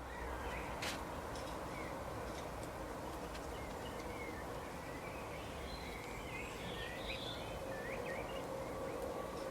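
Several small birds chirping and calling in short, quick phrases over a steady outdoor background noise with a faint constant hum. A single sharp click sounds about a second in.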